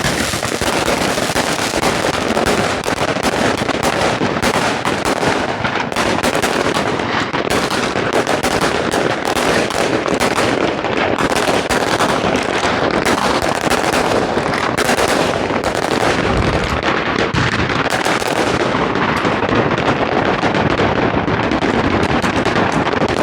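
Many New Year's Eve fireworks and firecrackers going off at once: a dense, rapid, unbroken crackle of pops and bangs, like machine-gun fire.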